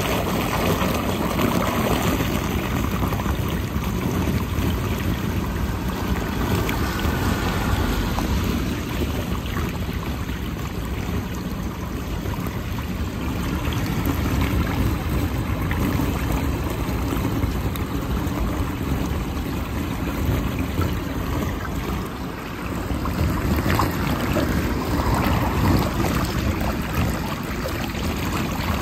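Standing water draining fast down a storm drain through a whirlpool, a steady rushing, swirling water sound as debris is drawn in.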